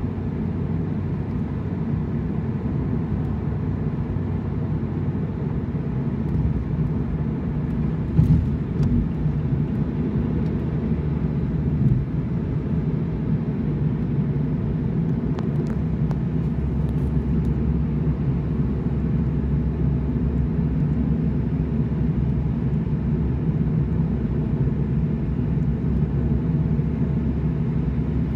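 Steady low rumble of road and engine noise inside a moving car's cabin, with a couple of brief knocks about 8 and 12 seconds in.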